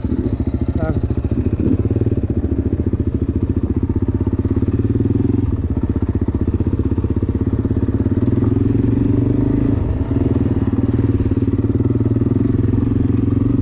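Suzuki DR-Z400 single-cylinder four-stroke motorcycle engine running steadily in gear while riding, with a brief dip in the engine note about ten seconds in. The freshly rebuilt engine is being ridden with an intermittent metallic tap that the rider feared was a broken piston ring.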